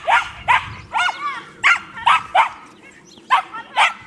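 Small dog barking repeatedly in short, high yaps, about eight of them with a brief pause past the middle, excited barking as it runs the agility course.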